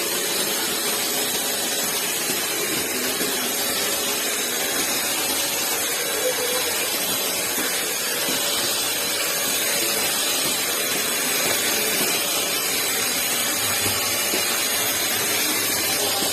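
Steady, loud rushing air noise of PC case fans running, with faint thin whining tones on top.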